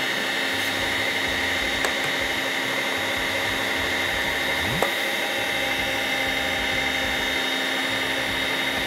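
Electric meat grinder motor running steadily with a constant high whine, pushing minced meat through a sausage-stuffing nozzle into a casing.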